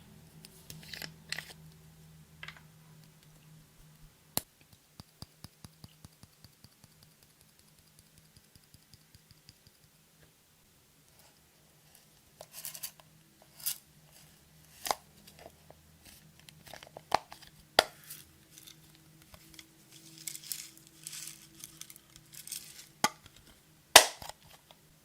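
Close handling of makeup containers and packaging: sharp clicks and snaps, a run of quick ticks that fade away, then crackling and crinkling with sharp clicks.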